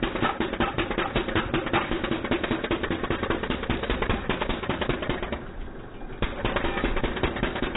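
Pneumatic jackhammer hammering rapidly into broken pavement, a fast, steady clatter of blows. It stops briefly a little over five seconds in, then starts again.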